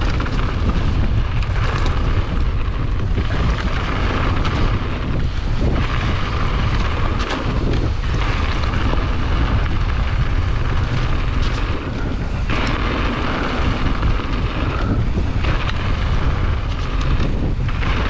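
Wind buffeting the microphone as a mountain bike descends fast, with the tyres crunching over loose gravel and shale and frequent short rattles and clicks.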